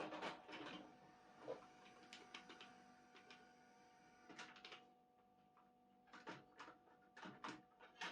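Faint scattered clicks and knocks from handling an Aiwa mini stereo system's controls and mechanism, in small clusters, over a faint steady tone.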